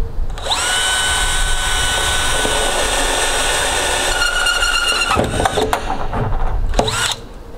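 Cordless drill boring through the plastic wall of a 55-gallon drum. Its motor whine holds one steady pitch for about five seconds, then turns uneven and stops after one more short run near the end.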